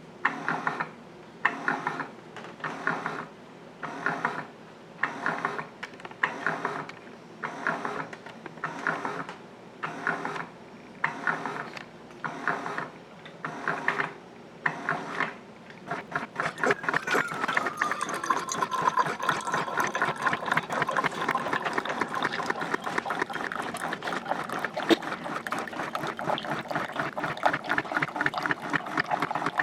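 Keurig K475 single-serve brewer running a 12-ounce brew. Its pump pulses about once a second for roughly sixteen seconds, then settles into a steady rattling run with liquid streaming into the cup and a tone that slides down slightly.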